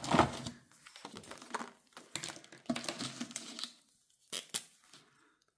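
Rustling and crinkling of a clear plastic binder pocket and paper cards being handled, loudest at the start, followed by two sharp clicks about four and a half seconds in.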